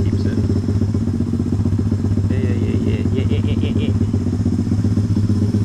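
125cc pit bike's single-cylinder engine, fitted with a Nibbi carburettor, idling steadily. A short run of high-pitched beeps sounds a little past two seconds in.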